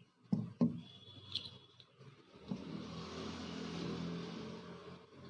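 Two sharp clicks about a third of a second apart, then a passing road vehicle that swells and fades over about two and a half seconds.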